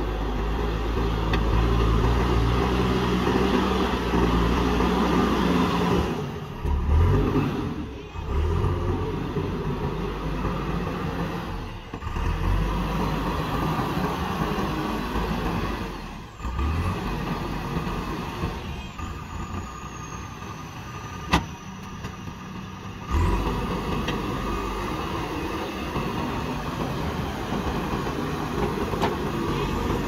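JCB backhoe loader's diesel engine running under load as the machine pushes and levels soil, its pitch rising and falling with the work and dropping away briefly a few times. A single sharp click about two-thirds of the way through.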